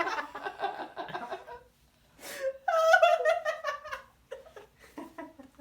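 Helpless, ticklish laughter in quick repeated bursts, with a sharp gasping in-breath about two seconds in, then a loud fresh fit of laughing that trails off into softer giggles.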